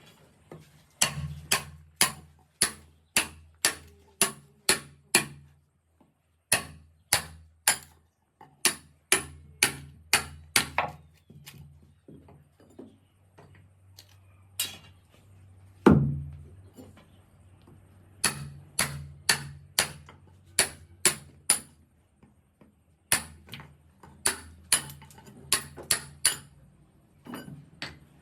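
Hand hammering in a woodworking shop: quick runs of sharp blows, about three a second, broken by short pauses, with one heavier blow about sixteen seconds in.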